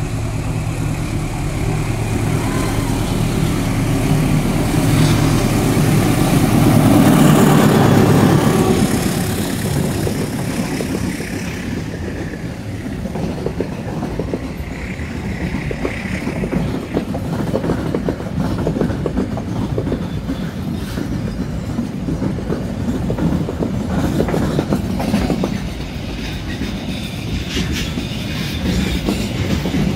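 Loaded coal freight train passing through without stopping. First the diesel locomotive's engine, loudest about eight seconds in. Then the wheels of its 20 flat wagons full of coal clatter over the rail joints in a steady, even rhythm.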